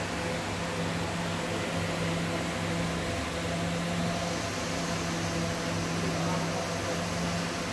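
A steady machine hum, a low drone with an even hiss over it, unchanging throughout.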